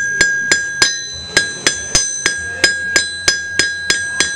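Steady hand-hammer blows on a steel band over an anvil, about three to four strikes a second. Each blow rings with a high metallic tone that hangs on between strikes.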